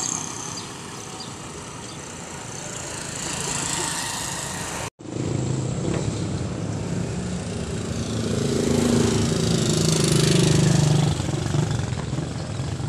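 Roadside traffic noise of motorcycle and tricycle engines going by. In the second half a nearby motorcycle engine runs louder for a few seconds, then drops off suddenly.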